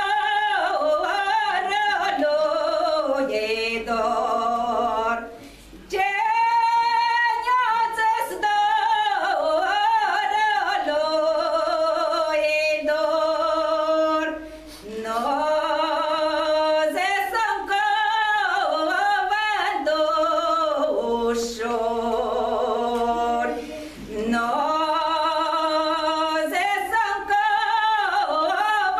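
A woman singing a Romanian folk song of Maramureș unaccompanied, in long ornamented phrases with a wavering vibrato, breaking off briefly for breath three times.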